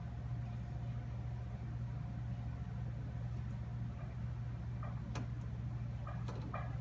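Refrigerator running with a steady low hum, with a sharp tick about five seconds in and a few faint short taps near the end.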